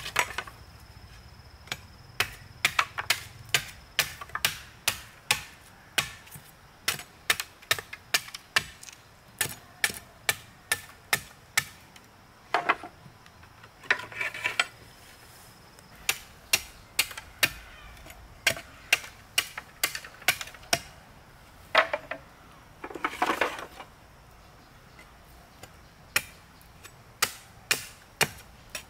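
Machete blade chopping and trimming split bamboo slats: sharp, irregular knocks in quick runs with short pauses, and twice a longer rasping sound about a second long.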